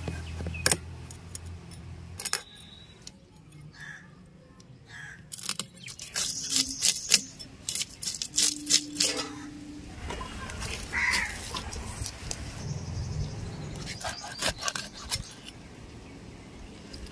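A tilapia being scaled and cut on a boti, a fixed curved kitchen blade: the scales scrape off against the blade in irregular runs of quick, sharp, scratchy clicks.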